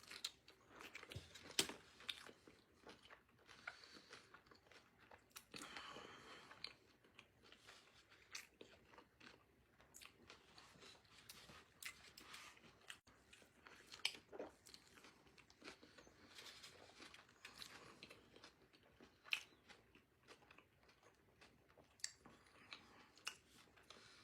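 A person biting into and chewing a cheeseburger: soft wet chewing with many short crunchy clicks, a few louder bites standing out.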